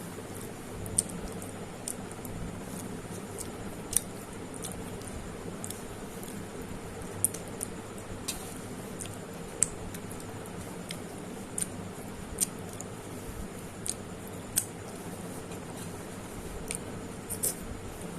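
A person eating close to the microphone: wet squishy chewing with sharp mouth clicks and smacks at irregular intervals, roughly one a second, over a steady low background hum.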